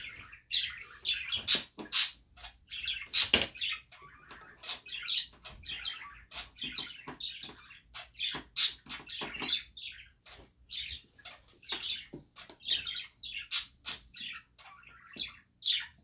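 Small birds chirping in quick, irregular bursts, with several sharp clicks or knocks in between, the loudest about three seconds in.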